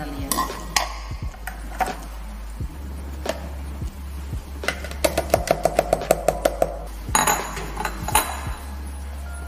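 A spoon scraping and clinking against the food chopper's bowl as blended shallot and garlic paste is scooped out, with a quick run of about a dozen taps about halfway through.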